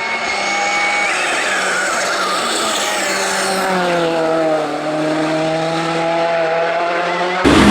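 Ford Fiesta R5 rally car's turbocharged four-cylinder engine running hard at speed, its note sagging and climbing slowly, with tyre noise and some tyre squeal. Near the end a cut switches abruptly to a louder burst of the engine.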